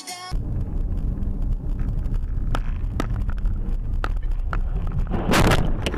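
In-car dashcam audio of a car driving: a steady low rumble of engine and tyre noise, with a few faint clicks and a loud, short rushing noise about five seconds in.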